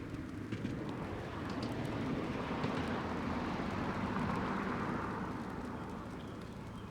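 A vehicle going past, its noise swelling to a peak about halfway through and then fading.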